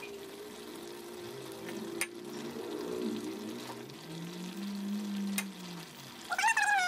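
Quiet background music with held low notes, and a short high-pitched, wavering sound near the end.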